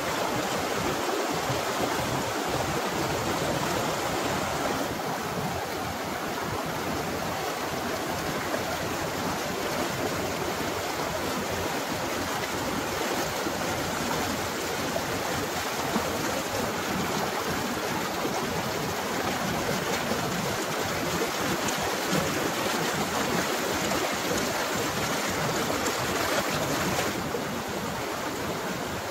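Fast, shallow rocky stream rushing over stones in white-water rapids: a steady, even rush of water.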